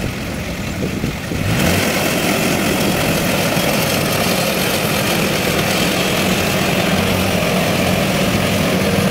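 Tracked rice combine harvester's diesel engine running, getting louder and harsher about a second and a half in, then holding steady as the machine works into the standing rice.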